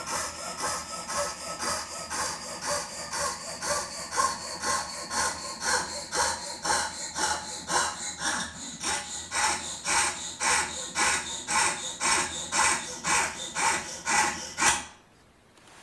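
Jeweler's saw cutting mother-of-pearl in steady hand strokes, about three a second, with a faint ringing tone that slowly drops in pitch. The sawing stops abruptly near the end.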